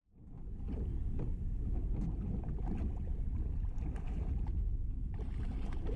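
Steady low rumble of a small pleasure boat on the water, with wind on the microphone. It fades in over the first half second.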